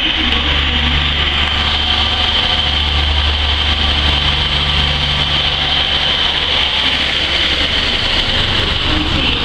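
Class 153 diesel railcar's Cummins engine under power as the unit pulls away and passes close by, a steady low drone with a hiss above it.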